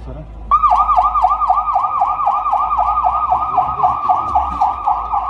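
Ambulance electronic siren sounding a fast yelp, its pitch rising and falling about four times a second. It starts abruptly about half a second in and is loud.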